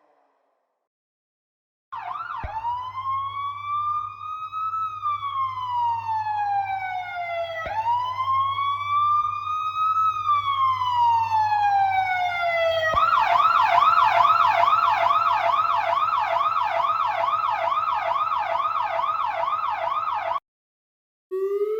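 Emergency vehicle siren: two slow rising-and-falling wails, then about 13 s in it switches to a fast yelp of roughly three cycles a second, which cuts off suddenly; after a short gap another wail starts rising near the end. A faint low steady hum runs under the siren.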